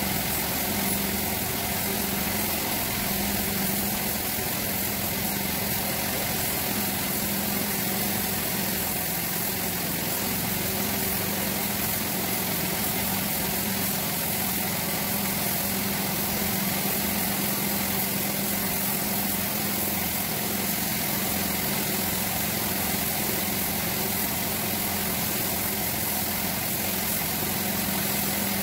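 Gravity-feed spray gun spraying clearcoat: a steady hiss of air and paint mist over a constant machine hum.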